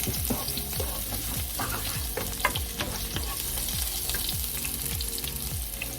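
Chopped garlic sizzling in hot oil in a frying pan, with the clicks and scrapes of a utensil stirring it.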